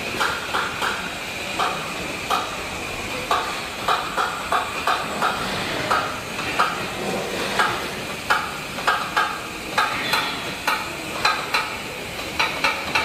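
Car body-shop robot cell: the robots' gripper tooling gives irregular short clacks and hisses, about one or two a second, over a steady high hum.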